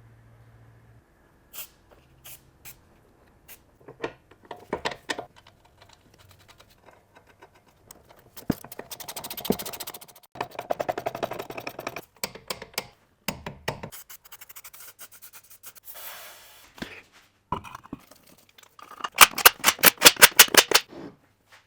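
Metal hand tools working on a car's front suspension during a stabilizer link change: scattered clicks, knocks and scraping, then near the end a burst of rapid, evenly spaced clicks.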